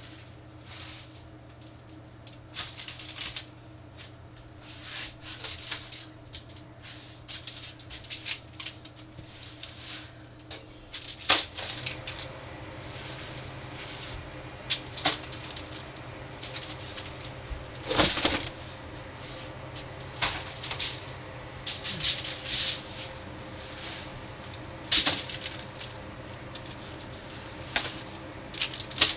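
Plastic sheeting and aluminium foil rustling and crinkling in short bursts as gloved hands lift rib racks and lay them on a foil-lined pan, with a few sharper crinkles, over a steady low hum.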